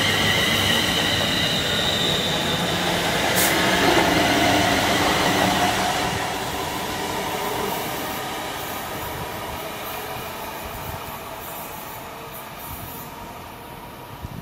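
London Northwestern Railway electric multiple unit running past at speed, its wheels on the rails giving a high whine in the first seconds, with a single sharp click about three and a half seconds in. The rumble then fades steadily as the train draws away.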